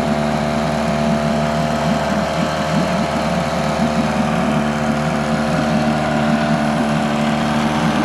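Johnson 4 hp Seahorse two-stroke twin-cylinder outboard running steadily, with water churning in the test tank around its leg.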